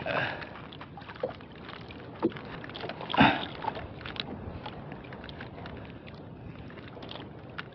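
Sea water lapping against a small outrigger boat's hull in wind, with a few light knocks and one louder rush of water or wind about three seconds in.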